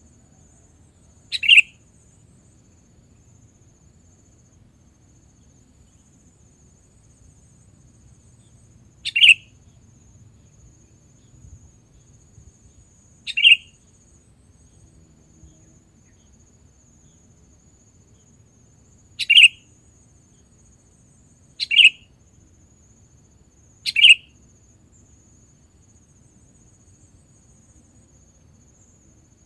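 Sooty-headed bulbul (kutilang) giving short, sharp calls, six of them spaced a few seconds apart.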